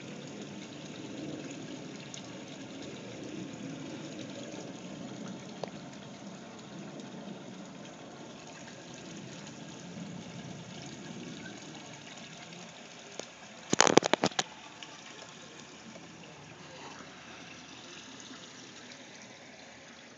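Water running steadily in a fish tank, a continuous trickling gush. About 14 seconds in, a quick clatter of several sharp knocks rises well above it.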